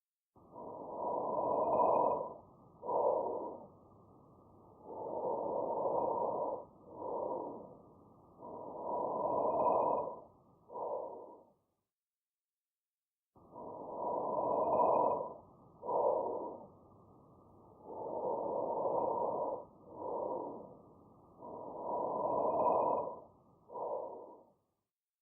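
Normal vesicular breath sounds as heard over the lung field: a soft, blowing breath noise, each longer inhalation followed by a shorter, fainter exhalation. There are three breaths, a pause of about two seconds, then three more.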